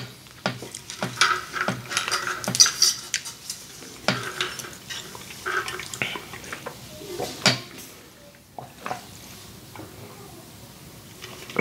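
Clicks and clinks of a large insulated water bottle being lifted and handled, then drinking through its straw, with the sounds growing quieter about eight seconds in.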